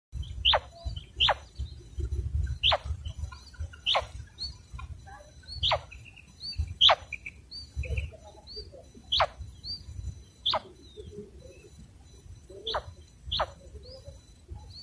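Common quail calling with short, sharp notes that fall steeply in pitch, about ten of them at irregular intervals, with fainter small chirps between and a low rumble underneath.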